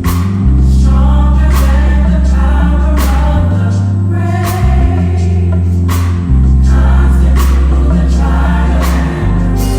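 Live gospel band with a choir singing over a Fender Jazz electric bass holding long, deep notes that change every second or two. Percussion hits land about every one and a half seconds.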